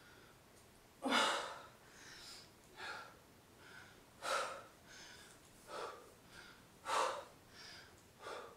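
A woman breathing hard while exercising: three sharp puffs of breath about three seconds apart, with softer breaths between.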